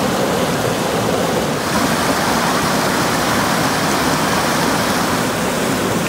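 River water rushing steadily over rocks in small rapids, an even, unbroken noise.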